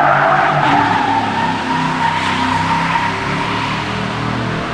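GMC pickup truck spinning its rear tyres in a donut: a steady tyre squeal over the engine held at high revs. The squeal slowly drops in pitch and eases after a couple of seconds.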